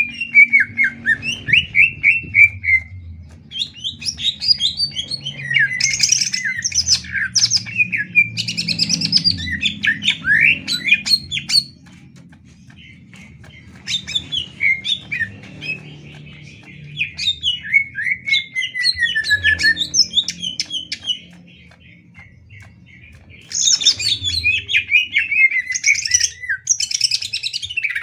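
Cucak ijo (greater green leafbird) singing loudly: rapid, varied phrases of quick sweeping and chattering notes, in bursts of several seconds with two short pauses.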